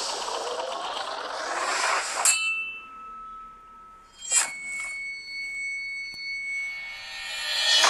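Cartoon sound effects: a long whoosh as a flaming spear flies, ending about two seconds in with a sharp hit and a ringing ding. A second hit with a held ringing tone comes about four seconds in, and another whoosh swells near the end.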